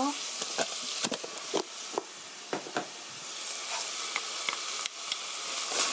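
Chopped onion, garlic and carrot sizzling in a stainless steel frying pan, a steady hiss, while a metal spoon and wooden spatula stir them and scrape in a spoonful of gochujang, giving scattered sharp clicks and knocks against the pan.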